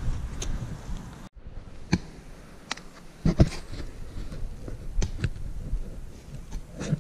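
Scattered sharp knocks and scrapes of hand-tool work in earth, with a dense run of thumps at the start and a sudden brief break in the sound just after a second in.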